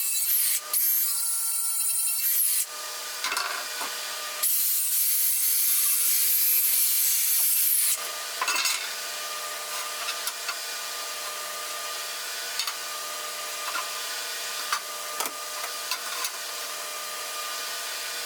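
A power tool working the steel of a window grate in two loud runs, each starting and stopping abruptly, the second about three and a half seconds long. After that, a steady hum with scattered light metal clicks and taps.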